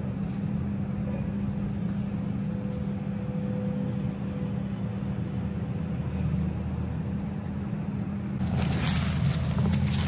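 Heavy-equipment diesel engine running steadily at idle-to-working speed. About eight and a half seconds in, a rush of wind noise on the microphone rises over it.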